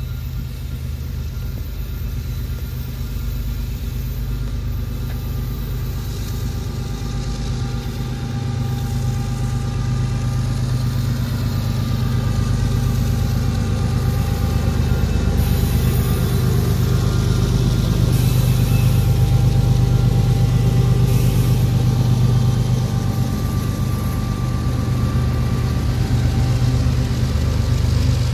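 Union Pacific diesel-electric freight locomotives running past, a deep steady engine drone that grows louder as the train approaches and is loudest about two-thirds of the way through, with rolling rail noise as the units go by.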